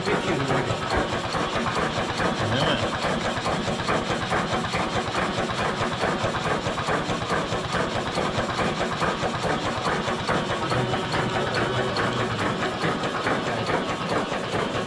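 Old stationary engine running steadily, with a fast, even knocking beat.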